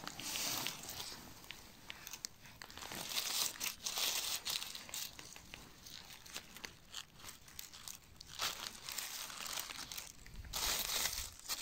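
Dry fallen leaves rustling and crackling in uneven bunches as hands brush and lift the leaf litter off a marzuelo mushroom.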